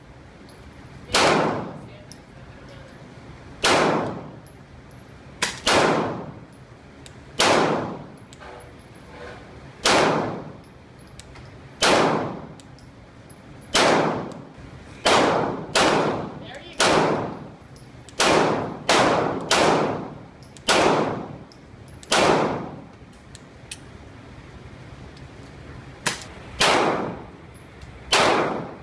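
Glock 22 pistol firing 9mm through a Lonewolf conversion barrel: about twenty single shots, one to two seconds apart, each ringing out briefly, with a pause of a few seconds near the end.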